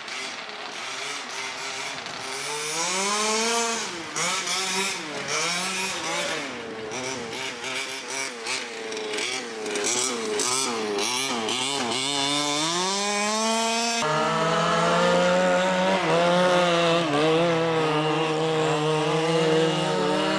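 Small two-stroke petrol engines of quarter-scale RC cars revving up and down repeatedly as they drive the track. About two-thirds of the way in, the sound changes suddenly to a steadier engine note that wavers only slightly.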